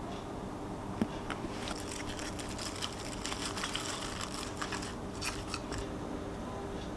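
Baby salad leaves rustling and crinkling as they are pressed by hand into a wooden bento box, a run of small crackles, with one sharp tap about a second in.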